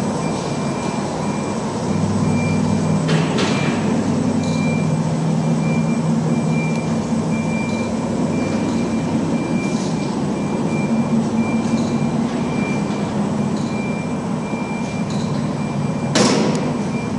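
Large gantry CNC router running with a steady machine hum that grows louder about two seconds in. A faint high beep repeats about once a second, and two short hissing bursts come about three seconds in and near the end.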